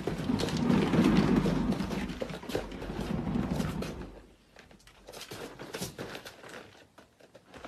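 A cat exercise wheel turning as a cat runs in it: a rolling rumble mixed with the patter of paws on the track, fading out about four seconds in. A few light taps and knocks follow.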